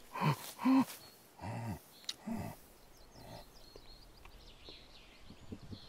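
Sasquatch grunting: four short grunts, each rising and falling in pitch, in the first two and a half seconds.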